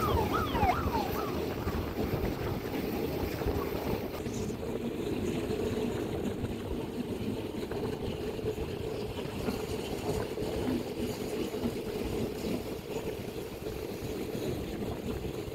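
Steady low rumble of vehicles running, with a few short falling squeaks around the first second.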